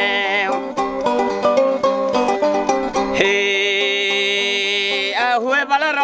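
Sasando gong, the Rotenese palm-leaf tube zither, plucked in a quick run of short notes. A man's chanting voice holds long notes around the plucking and near the end moves into a wavering, bending melody.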